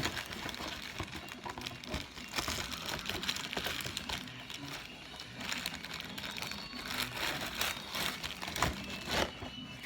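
Crinkling and rustling of packaging being handled, with many small clicks and knocks.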